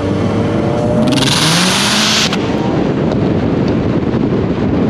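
Subaru WRX engine accelerating on the road, its note rising in pitch, with a loud hiss lasting about a second early on, then a steady engine, road and wind rumble.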